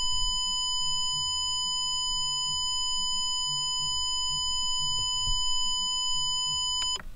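Holden VE Commodore instrument cluster's chime sounder giving one continuous electronic beep during the cluster's engineering-mode full test, a steady tone that cuts off suddenly near the end as the test finishes.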